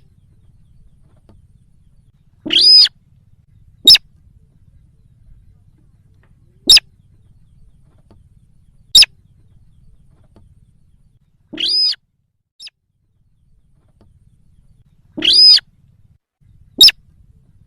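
Recorded lure call of the sintar, a rice-field bird, played to draw wild birds in. Single sharp notes alternate with longer, harsher notes, each a few seconds apart, over a faint low hum.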